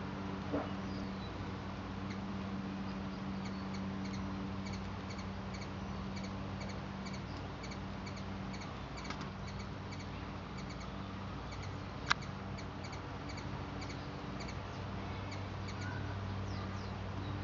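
Steady low hum under a faint, regular high chirping, about two to three chirps a second, with one sharp click about twelve seconds in.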